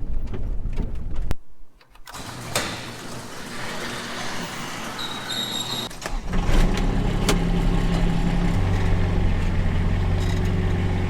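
Gusty wind-like noise, then about six seconds in a skid steer's engine comes in loud and runs steadily, its low hum shifting a little partway through.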